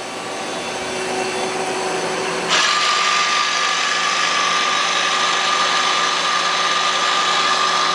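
Live-tool spindle of a Citizen L32VII CNC Swiss lathe spinning up, growing louder, then about two and a half seconds in stepping up abruptly to a steady high whine over a hiss as it runs at about 3,000 RPM.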